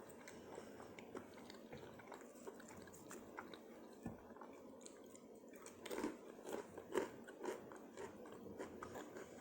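Person chewing and crunching food close to the microphone, with a run of louder crunchy bites about six to seven and a half seconds in.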